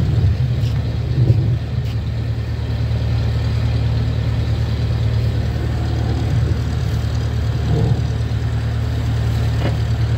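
Drain-jetting machine's engine running steadily, a constant low drone, as it drives a high-pressure hose clearing a blocked kitchen drain line.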